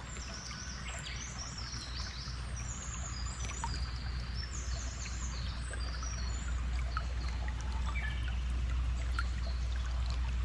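Nature ambience of a flowing stream, with birds chirping and trilling over it. The birds are busiest in the first half, and a steady low hum runs underneath.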